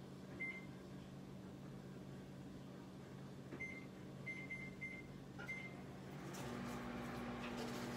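Microwave oven being set to melt butter: several short keypad beeps, then about six and a half seconds in the oven starts running with a steady hum.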